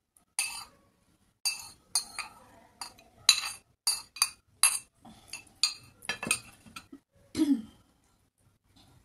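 A spoon clinking and scraping against a white serving bowl while curry is scraped out of it onto a plate: a dozen or so sharp clinks over several seconds. Near the end a duller knock as the bowl is set down on the glass tabletop.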